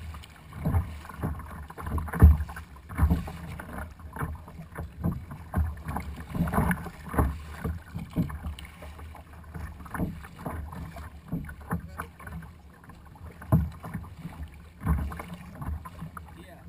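Ocean chop slapping and splashing against a kayak hull as it moves, heard as irregular dull knocks and splashes, about one or two a second.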